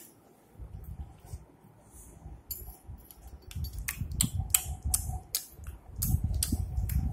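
Rumbling handling noise from a phone being moved about, with a quick run of light clicks and taps from about two and a half seconds in.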